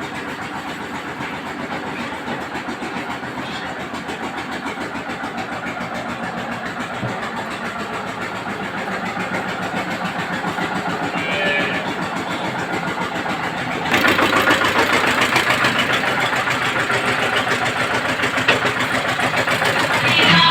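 An engine running steadily with a rapid, even chugging pulse; about two-thirds of the way through it suddenly gets louder and brighter.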